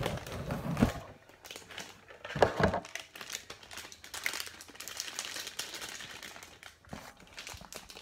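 Hard drive packaging being handled: the cardboard box thumps a couple of times in the first few seconds, then a foil anti-static bag crinkles as the drive is taken out.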